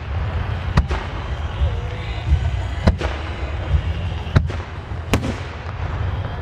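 Aerial firework shells bursting: four sharp bangs spaced unevenly over a few seconds, over a steady low rumble.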